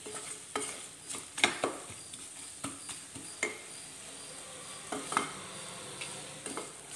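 Wooden spatula stirring and scraping an onion-tomato masala against the sides of an aluminium pressure cooker in irregular strokes, over a steady sizzle of the masala frying in oil. The stirring pauses briefly around the middle.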